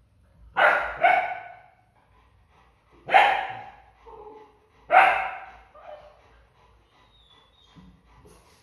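Puppy barking at the bigger dogs lying on the bed: four sharp barks, two in quick succession about half a second in, then single barks at about three and five seconds.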